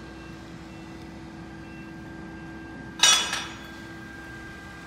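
Steady machinery hum on a work site, with a sudden loud, sharp ringing sound about three seconds in, struck twice in quick succession and dying away within half a second.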